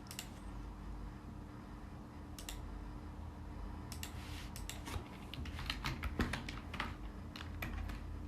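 Typing on a computer keyboard: scattered keystrokes at first, coming quicker and more often from about halfway through, over a low steady hum.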